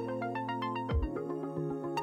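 Electronic background music: a held bass note under a stepping melody, with one deep kick drum about a second in.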